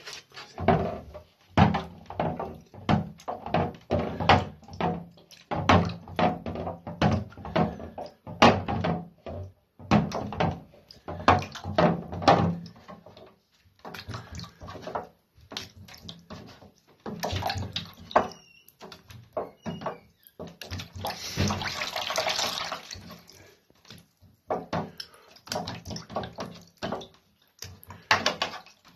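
Water splashing and sloshing in a plastic tray as a cyanotype print is rinsed by hand, in quick irregular splashes. Partway through comes a steadier rush of water for a couple of seconds.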